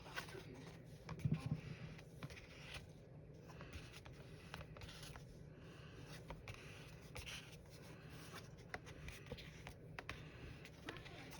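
Faint scratchy rubbing on watercolor paper, with a few light taps and a soft knock about a second in.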